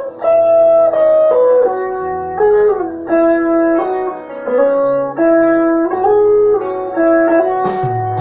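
Electric guitar playing a slow melodic lead of held notes, several slid or bent into pitch, over a backing track with a bass line. A fuller, louder passage comes in near the end.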